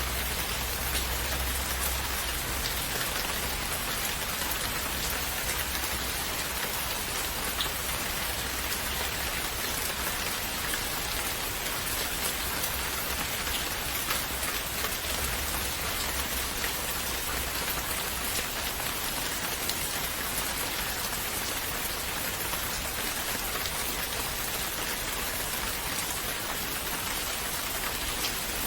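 Steady rain falling on a surface: an even hiss dotted with the small ticks of individual drops.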